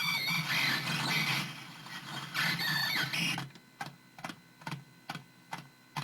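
Circuit-bent sound effects toy making glitchy electronic sounds: warbling, wavering tones over a noisy hiss, then, about halfway through, a string of short clicks about two or three a second.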